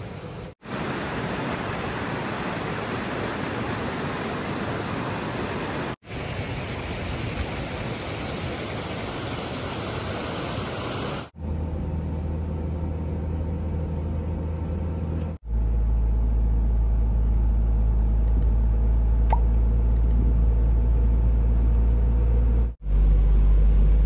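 A steady rushing noise for about the first eleven seconds, then a car's low, steady engine and road hum heard from inside the cabin while driving, louder near the end. Brief gaps break it at several points.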